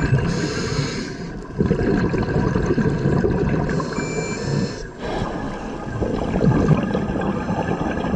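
Underwater sound of scuba divers breathing through their regulators, with exhaled air bubbling and rumbling in surges that ease off briefly twice.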